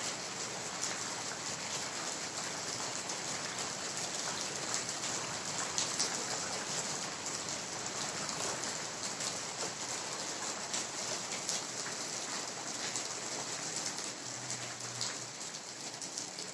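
Steady rain-like patter: a dense, even hiss scattered with many small ticks.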